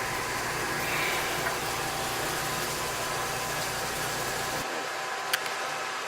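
Antique turret lathe running under power, a steady mechanical noise with a few steady whining tones. Its deep low hum drops out abruptly about four and a half seconds in, and a single sharp click follows a moment later.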